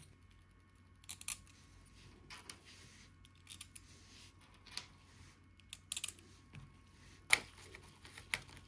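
Faint, scattered clicks and light knocks of small parts, wires and a small screwdriver being handled against a metal computer case chassis, with one louder knock about seven seconds in, over a faint steady low hum.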